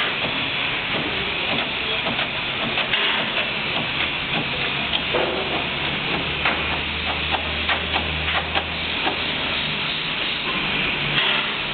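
Stainless-steel V blender (twin-shell blender) running on trial: a steady hissing mechanical noise, with a run of light clicks and knocks and a low hum through the middle.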